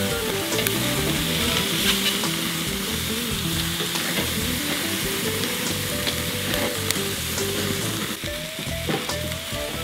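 Chicken thighs sizzling steadily as they sear directly over hot charcoal on a kettle grill, with a few light clicks of the metal tongs that turn them. Background music with a slowly stepping melody plays underneath.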